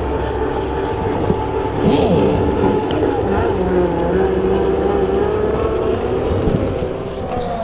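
Several motor engines running at once, their pitches slowly drifting up and down, with a quick falling sweep about two seconds in as one passes.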